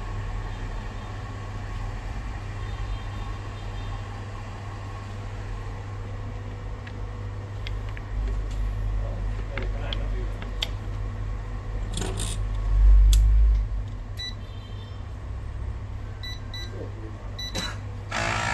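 Steady low electrical hum from the vacuum laminating machine and its pump, with scattered clicks and a dull thump about two-thirds of the way in as the screen holder is slid into the machine. A few short beeps from the machine's control panel follow.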